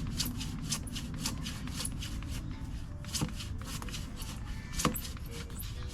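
Hand saw cutting through a plum tree branch: a quick, even back-and-forth rasp of the teeth in the wood, about four strokes a second, with a couple of sharper knocks partway through.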